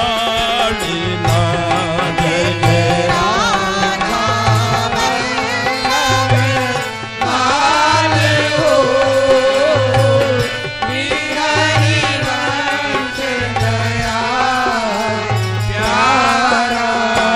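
Devotional naam dhuni chant music: a wavering melody over a deep drum stroke that falls roughly every second and a half.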